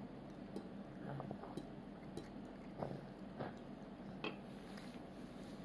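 Faint, scattered clicks and taps of a toddler's fork against his plate as he eats, a handful of separate small ticks a second or so apart.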